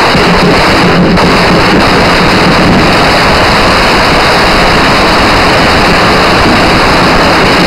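Strings of firecrackers going off at close range in a dense, continuous crackle, very loud and unbroken.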